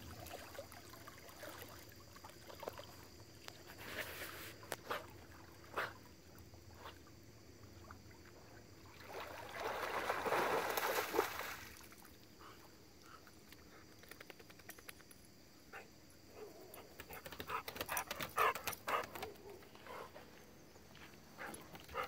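A dog swimming in a lake, with water sloshing around it and a louder burst of splashing about ten seconds in as it scrambles out of the water. Quick clicks and taps come later as it moves about.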